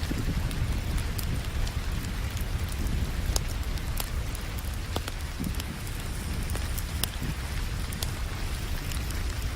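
A wood fire crackling, with sharp pops every second or so, over a steady hiss of rain and a low rumble underneath.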